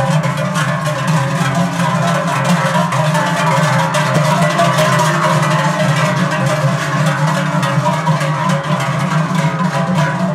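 Many large cowbells clanging and ringing together in a continuous, dense jangle as a herd of cows walks past.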